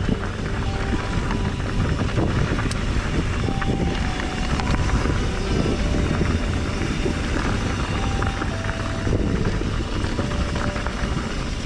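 Mountain bike riding fast down a dirt trail: wind buffeting the microphone over a steady rumble of tyres, with scattered clicks and rattles from the bike.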